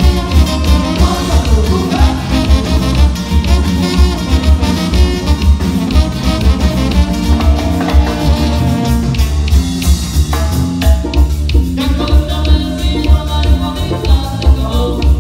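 A Mexican banda plays a dance number: brass instruments over a steady beat with a pulsing bass line.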